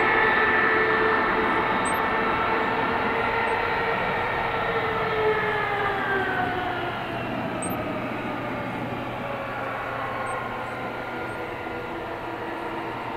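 Twin turbofan engines of a Boeing 777-200 whining steadily as the airliner taxis on the runway. Around the middle, several of the whining tones slide down in pitch and the sound eases off gradually.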